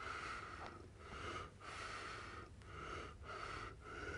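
A man's faint, wheezy breathing in short breaths.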